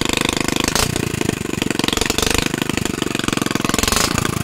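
Mitsubishi GM182 single-cylinder petrol engine running fast through a short straight exhaust pipe with no muffler, its firing pulses coming in a rapid, even chatter.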